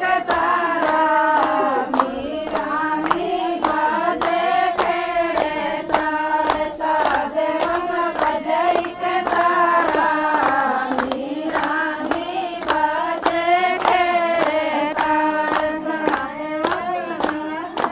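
A group of women singing a folk song together, over steady rhythmic hand clapping at about two claps a second.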